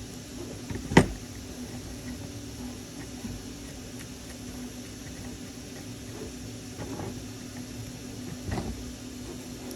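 Small parts and tools being handled at a workbench: one sharp click about a second in and a couple of softer knocks near the end, over a steady low hum.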